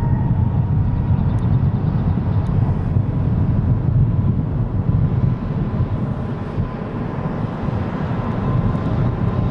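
Airbus A380's four jet engines running as the airliner rolls along the runway: a steady low rumble with a faint thin whine above it.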